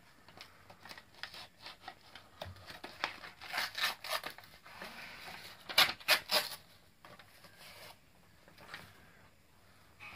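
Paper rustling and tearing as presents and cards are unwrapped, in bursts of crackling with the loudest rips about six seconds in.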